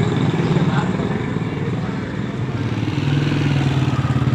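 A vehicle engine idling with a fast, even chugging. The note steadies about three seconds in.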